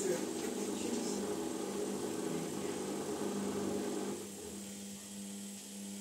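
Samsung front-loading washing machine running, its drum turning to distribute the laundry before the spin, with a steady motor hum; the drum noise drops away about four seconds in.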